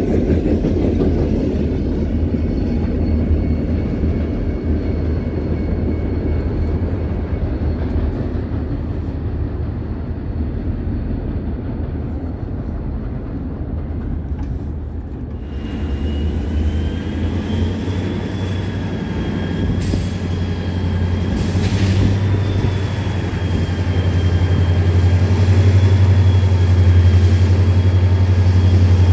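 EMD diesel freight locomotives and their train: cars rolling past with a steady low rail rumble that eases off, then, after a cut about halfway through, an EMD lash-up's diesel engines running with a low drone that grows louder, with a thin high wavering squeal over it.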